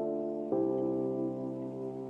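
Soft ambient background music: slow sustained chords, with a new chord coming in about half a second in.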